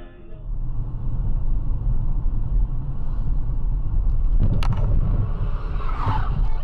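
Low, steady rumble of a car driving, picked up from inside the car by a dashcam, with a few sharp clicks about four and a half seconds in.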